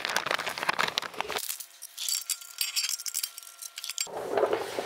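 Small steel Allen head screws and nuts clinking and rattling together as they are handled and tipped out of their bag, with a dense run of quick clicks at first and sparser ticks after.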